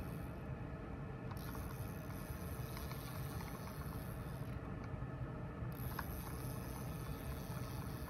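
Steady low rumble of background noise, with a few faint ticks.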